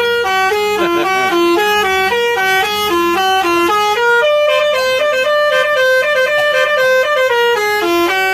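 Bus 'telolet' horn, a multi-trumpet air horn, playing a loud tune of short stepped notes that change about three times a second.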